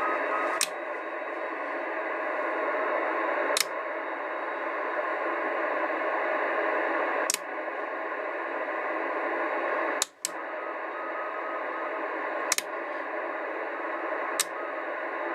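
Static hiss from the Radioshack DX-394 shortwave receiver's speaker, its band noise boosted by a home-built receive preamplifier, broken by sharp clicks every two to four seconds and one brief dropout about ten seconds in.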